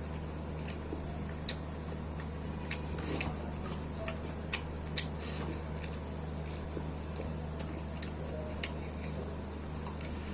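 A person eating chicken and fried rice: irregular wet smacks and sharp clicks of chewing and biting, the loudest about halfway through, over a steady low hum.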